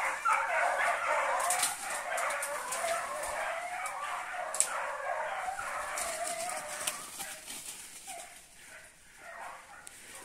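Pack of hunting dogs baying, many voices overlapping, at a paca holed up in its burrow; the baying thins out and fades over the last couple of seconds.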